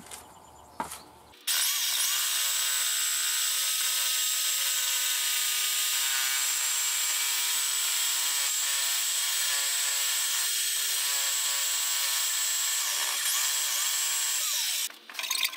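Reciprocating saw cutting through PVC pipe: the motor starts abruptly about a second and a half in, runs steadily through the cut, and stops shortly before the end.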